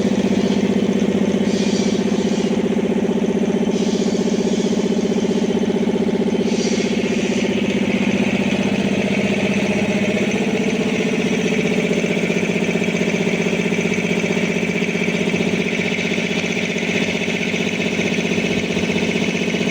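Air compressor running steadily: a continuous loud mechanical hum with a fast, even pulse. Its tone shifts slightly about ten seconds in.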